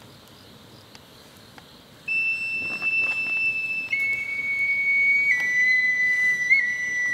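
A high wind instrument enters about two seconds in and plays long, pure held notes, each a step lower than the last. Before it there is quiet with a few faint clicks.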